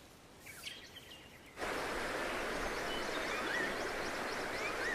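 Outdoor natural ambience. A few faint bird chirps, then about a second and a half in a steady rush of flowing stream water starts abruptly, with short rising bird whistles repeating over it.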